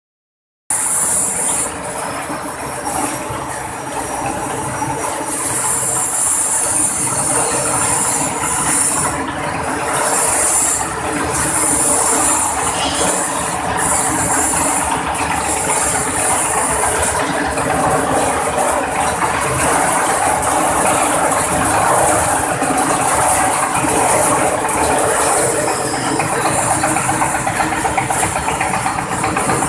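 Cassava skin-peeling machine running: its rotating drum turns with cassava roots tumbling inside, a loud steady mechanical clatter with hiss.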